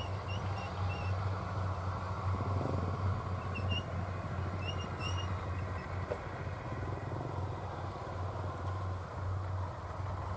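Engine of a homemade crawler rice-hauling tractor running steadily under load, with a continuous low hum. A few faint, short high chirps sound over it in the first second and again around four to five seconds in.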